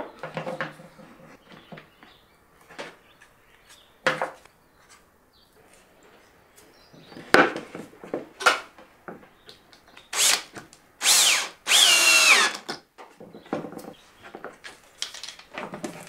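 Knocks and clicks of pine boards and spring clamps being handled on a workbench, then a power drill running in three short bursts about ten seconds in, its pitch dipping and rising as it drives screws to join the clamped pine frame.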